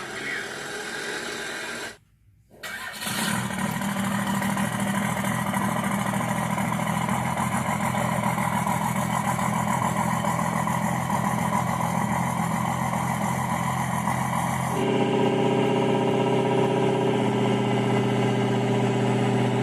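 Simulated V8 diesel engine effect from an RC truck's onboard sound module, played through its small speaker. After a brief drop-out about two seconds in, the engine effect starts and runs steadily. Its tone changes about fifteen seconds in.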